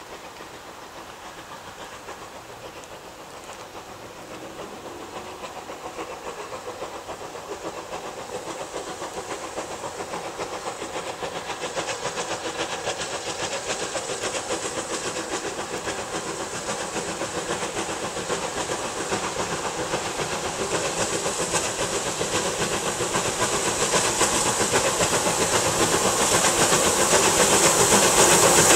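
Steam locomotive running and approaching, its steam and exhaust noise growing steadily louder throughout.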